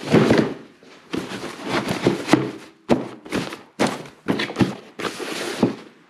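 Bulky fabric storage bags being pushed and packed by hand into an open Pelican Vault V700 hard plastic case: a bump at the start, then an irregular run of rustles, scrapes and knocks as the bags are shoved into place.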